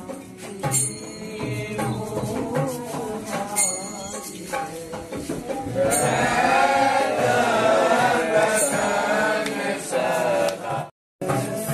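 Indian devotional chanting (bhajan/kirtan) by voices, with jingling hand percussion; the singing swells louder about six seconds in.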